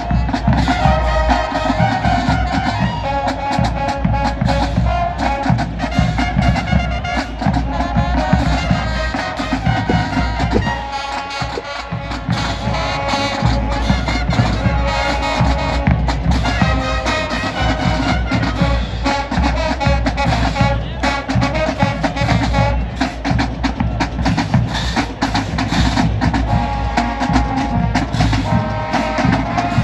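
A high school marching band playing: brass over a driving drum line, loud and continuous, with the bass drums dropping out briefly a little before the middle.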